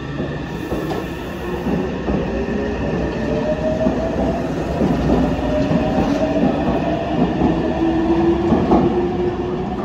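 Meitetsu electric train pulling along an underground platform: a steady rumble of wheels and running gear under a traction-motor whine that rises slowly in pitch as the train speeds up, with occasional clacks from the wheels over rail joints. The sound grows louder throughout.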